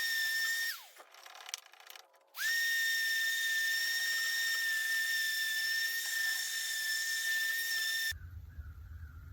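Electric sander stripping the varnish from a wooden hammer handle, running with a steady high whine. It is switched off just under a second in and winds down with a falling pitch, then is switched back on about a second and a half later and spins up quickly. Near the end the whine cuts off abruptly, leaving a low hum and a few faint knocks.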